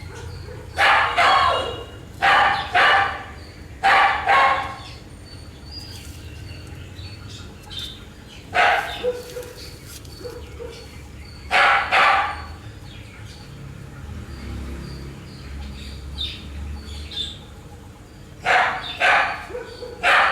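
A dog barking in short groups of one to three barks, with pauses of a few seconds between groups, over a steady low hum.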